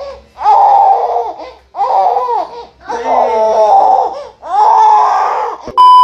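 A baby vocalizing in four short, high-pitched bouts. A little before the end a click, then a loud steady electronic beep of a TV test-pattern tone starts.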